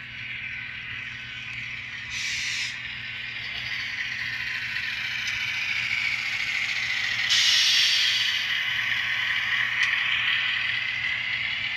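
HO-scale model coal train, a Kato AC4400 locomotive pulling gondolas, rolling along the layout track: a steady whirring hiss of motor and wheels on rail that grows louder as the locomotive comes by. There are two brief louder hissy stretches, about two seconds in and about seven seconds in.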